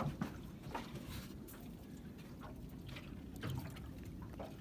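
Small waves lapping against the hull of a small fishing boat: irregular soft slaps and drips over a low rumble.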